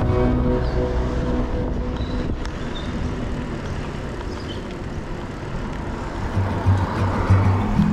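Background music fades out about two seconds in, leaving a steady rush of outdoor noise. Music with low bass notes comes back near the end.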